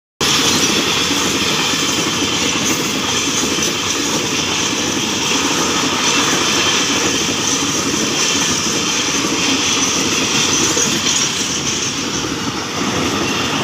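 Freight train's flat container wagons, mostly empty, rolling past, their steel wheels running steadily on the rails.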